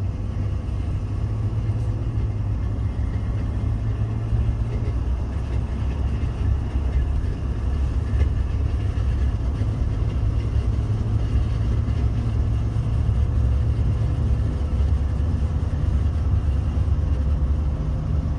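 2018 Ford F-150's front integrated wheel end (IWE) hubs grinding as the truck drives, a steady, rough low rumble. It is the sign of a known IWE fault on this model, which the dealer's field rep traced to the IWE and its check valve.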